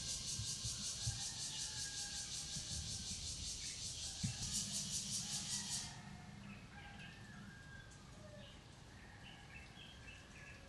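Outdoor ambience: a high, fast-pulsing buzz that cuts off suddenly about six seconds in, followed by faint bird chirps.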